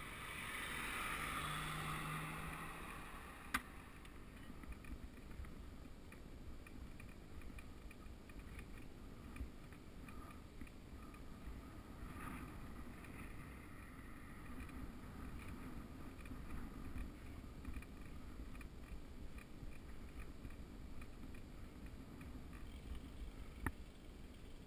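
Wind rushing over the microphone and tyre rumble from a bicycle rolling down a mountain road: a steady low rush. It swells briefly in the first few seconds, and there is a sharp click about three seconds in and another near the end.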